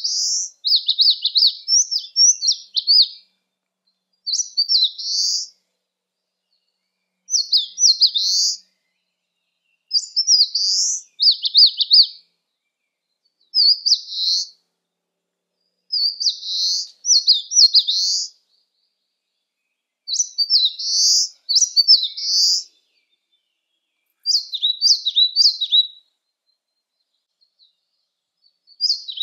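Eastern crowned warbler singing: short, high-pitched song phrases of one to two seconds, repeated about every two to three seconds, nine times in all.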